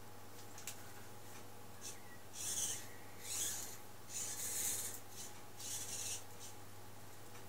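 Small servo motors of a homemade Arduino WALL-E robot whirring in about four short bursts as the robot turns and tilts its head.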